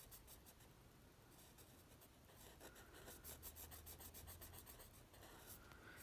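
Faint scratching of a pen on paper, a run of short quick strokes filling in a small dark area, a little louder from about two seconds in.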